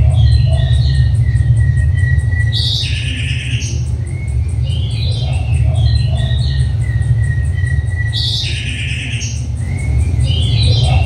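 Birdsong of chirps and a thin held whistle, the same phrase repeating about every five and a half seconds, over a steady low hum.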